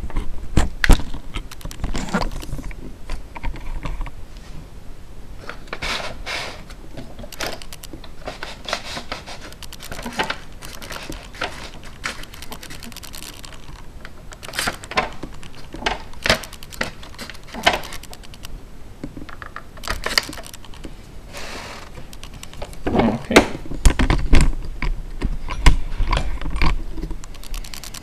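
Irregular plastic clicks and knocks from a Commodore MPS 801 dot-matrix printer being handled by hand while continuous paper is fed onto its tractor feed. The printer is not running. A heavier cluster of knocks with a low rumble comes near the end.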